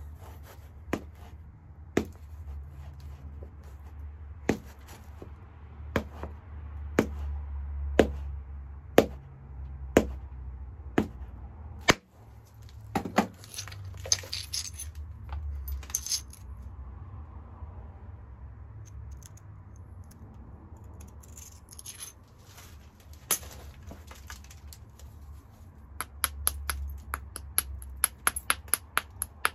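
A hornstone biface being worked by hand, stone on stone. Sharp clicks come about once a second for the first twelve seconds, a few scrapes and scattered clicks follow, and near the end a quick even run of light taps starts, about five a second.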